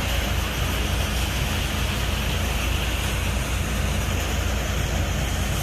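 Tractor-driven paddy thresher running steadily, the Massey Ferguson 241 DI's three-cylinder diesel humming low under the even noise of the threshing drum.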